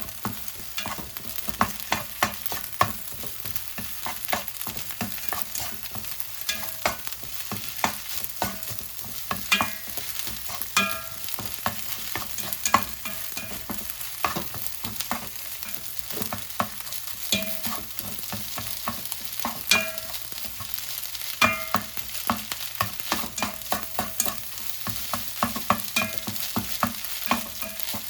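Fried rice being stir-fried in a hot pan: a steady sizzle under irregular clacks of a spatula or ladle striking the pan, some of them ringing briefly.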